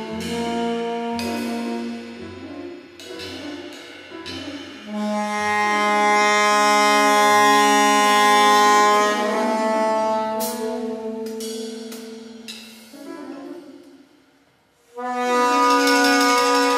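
Soprano saxophone in free improvisation, playing long held notes with a low pulse under them in the first few seconds. The sound dies away about fourteen seconds in, then a loud new held note starts abruptly a second later.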